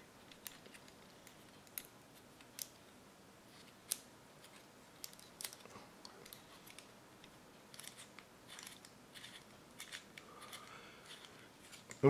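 2.0 mm pencil lead being turned in a small two-hole handheld lead sharpener: faint, irregular scraping and clicking of graphite against the blade.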